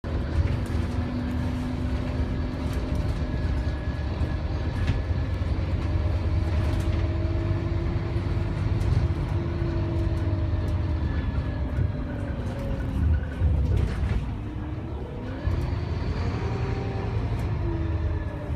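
Scania K280UB6 bus heard from inside the cabin while under way: its 9.3-litre five-cylinder Scania DC9 diesel and ZF Ecomat six-speed automatic gearbox give a steady low rumble with whining tones that drift in pitch. About three-quarters of the way through, the tones fall and then climb again, with scattered interior clicks and rattles throughout.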